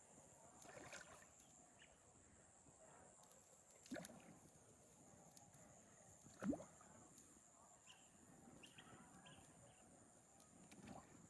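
Faint outdoor ambience with a steady high insect buzz. A few brief soft knocks come through it, the loudest about six and a half seconds in.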